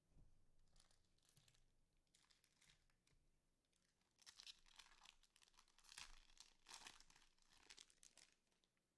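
Faint crinkling and tearing of a trading card pack's wrapper being opened, in a series of short rustling bursts that grow busier in the second half.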